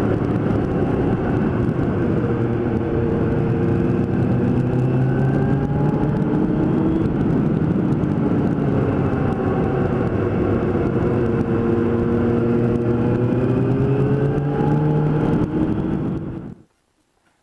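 Suzuki GSX-R 750 SRAD inline-four engine heard on board while riding, its pitch rising and falling with the throttle, under heavy wind rush over the microphone. The sound cuts off suddenly near the end.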